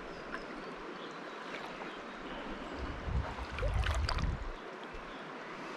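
River water running steadily, with a louder low rumble for about a second and a half near the middle.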